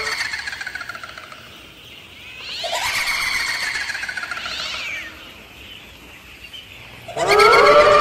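A siren-like wailing tone that slides down and dies away over the first two seconds, then swells and falls again in the middle. About seven seconds in it winds up sharply and holds loud and steady.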